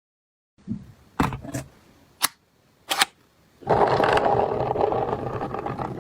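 Toy gel blaster: four sharp plastic clicks as it is handled, then a little past halfway a steady mechanical rattle-buzz, as of its electric motor and gearbox running.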